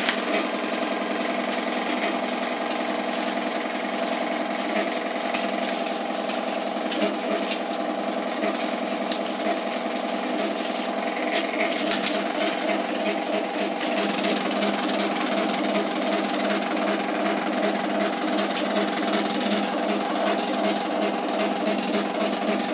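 Sharp XE-A137 cash register's built-in receipt printer running non-stop, printing out a long electronic journal (EJ) report that clears the journal memory. It is a steady, noisy mechanical whine, and in the second half it pulses about twice a second as the lines print.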